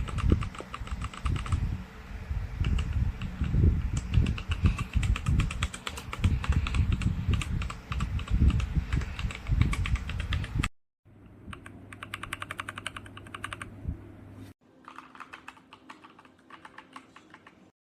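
Fast typing on a Leaven H96 98% mechanical keyboard: a dense run of key clacks. About eleven seconds in it cuts abruptly to quieter, sparser typing in two short takes.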